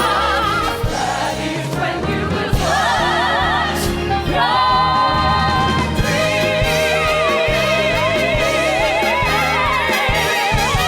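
A choir singing a gospel-style number with held, vibrato-laden notes over band accompaniment.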